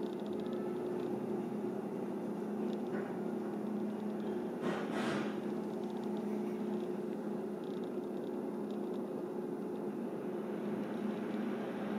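Steady low machine hum of a small room, with a brief soft hiss about five seconds in.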